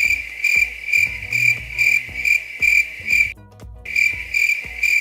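Cricket chirping: a steady high trill that pulses a couple of times a second, with a short break a little past three seconds in. Background music with a steady beat plays underneath.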